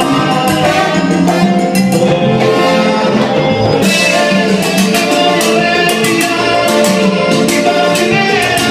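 Live Latin dance band playing loud: congas and timbales keeping a steady beat under a trombone section, with a lead singer.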